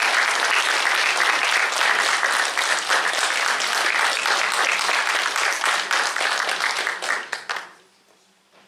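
Audience applauding, a dense patter of many hands clapping, which dies away quickly about a second before the end.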